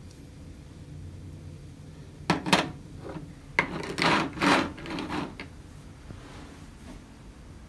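Short scraping and rubbing handling sounds in a kitchen: two quick strokes a little over two seconds in, then a run of louder rasping scrapes lasting nearly two seconds.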